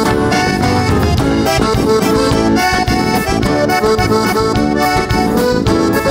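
Accordion playing a lively vaneirão instrumental break, with acoustic guitar and drum kit keeping a steady beat underneath.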